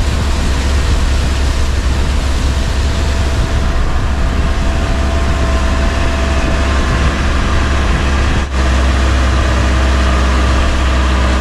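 Longtail boat's engine running steadily under way, a constant low drone, with rushing wind and water noise over it.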